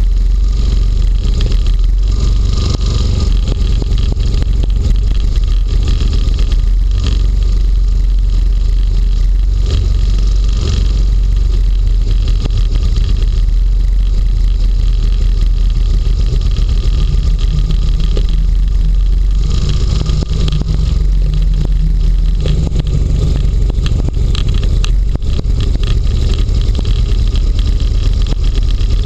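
Small inflatable hovercraft running steadily across snow, its engine and air propeller heard close up from a camera mounted on the hull.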